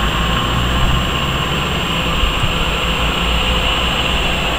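Wind on the microphone: a steady low rumble with a hiss above it.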